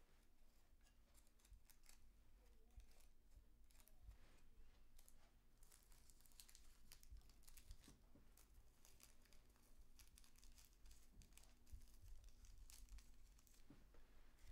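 Faint rustling and crinkling of a cigarette paper and loose tobacco handled by fingers as a cigarette is rolled by hand, with small irregular clicks, over a faint low hum of room tone.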